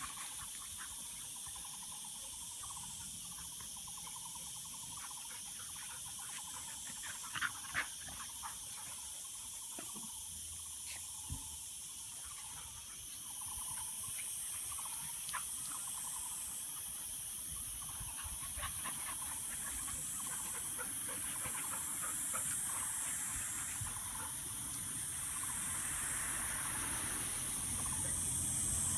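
Cicadas buzzing steadily in a high pitch, swelling and fading in slow waves through the second half. Two brief clicks sound close together about seven and a half seconds in.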